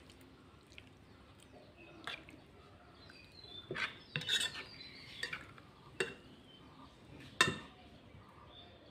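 Spoon clinking and scraping against a bowl while stirring marinated fish pieces and vegetables, a handful of separate knocks with the loudest about seven seconds in.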